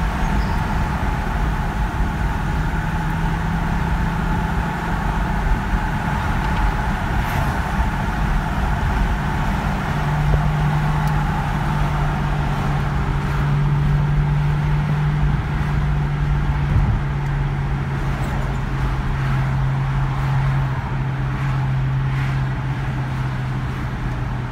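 Engine and road noise inside a moving Audi A6's cabin. A steady low engine drone sits over tyre and wind noise and drops slightly in pitch as the car slows.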